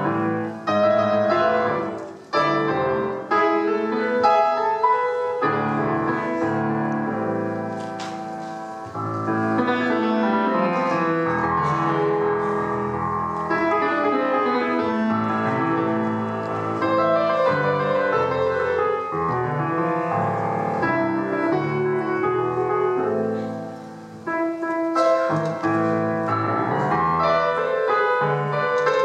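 Solo grand piano playing an Argentine folk-dance piece in a concert hall, full chords and running melody, with short breaks between phrases about two seconds in and again near the end.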